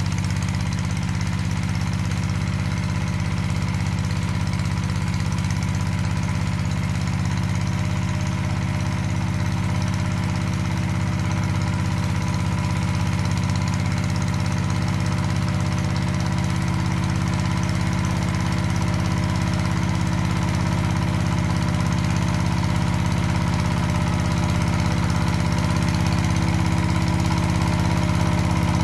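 Walk-behind power tiller's single-cylinder diesel engine running steadily, with an even knocking beat.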